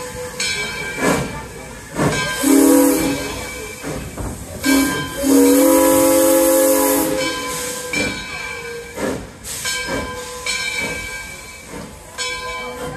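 Steam whistle of Arcade & Attica Alco steam locomotive #18 sounding a chord, a short blast and then a longer one of about two seconds, with hissing steam and the steady rattle of the train running.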